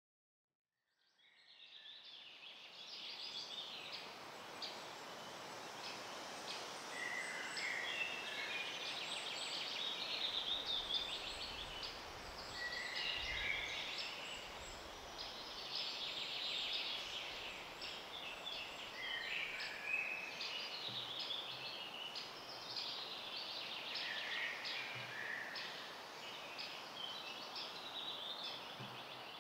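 Outdoor birdsong ambience: songbirds singing repeated chirping phrases every few seconds over a steady background hiss, fading in over the first couple of seconds.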